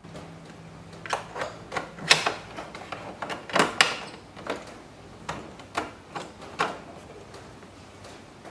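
Red plastic trim removal tool prising at the plastic trim behind the inside door handle of a Toyota LandCruiser 200 Series rear door: a run of irregular sharp plastic clicks and taps, loudest about two seconds in and again around three and a half to four seconds in.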